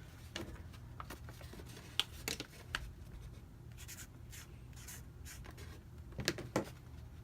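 Metallic Sharpie marker writing on a bag: a series of short scratchy strokes, with a couple of louder ones about six seconds in, over a steady low room hum.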